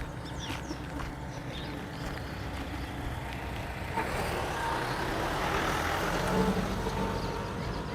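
A motor vehicle passing on the street: a low engine rumble and tyre noise that grow louder over the second half and peak shortly before the end.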